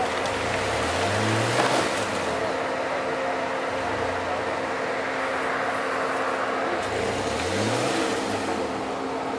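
Off-road SUV engine revving up about three times as it tries to pull out of a muddy rut, over a steady engine hum.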